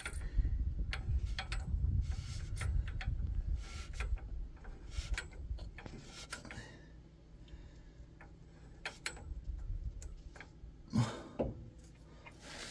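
Scattered clicks and small metal knocks as the ball joint end of an adjustable track bar is worked by hand against the axle mount, trying to line it up with the hole. A louder knock comes near the end.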